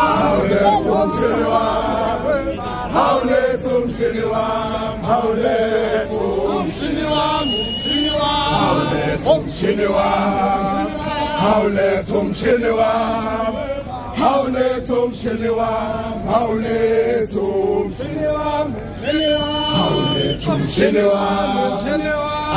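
A group of men singing and chanting together in unison as they march. A high shrill note rings out over the singing twice.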